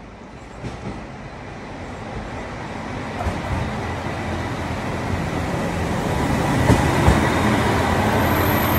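JR Hokkaido KiHa 283 series diesel express train pulling into the platform, its diesel engines and wheels on the rails growing steadily louder as it comes alongside, with a few knocks from the wheels late on.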